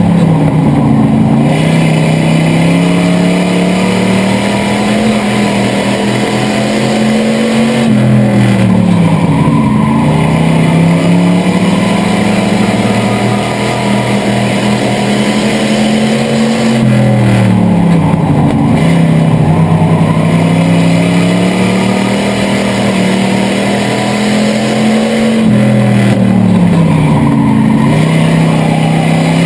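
Chevrolet 305 small-block V8 of a bomber-class stock car heard from inside the cockpit at racing speed. Its note drops as the driver lifts off for each turn and climbs back under throttle down the straights, about every nine seconds, four times in all.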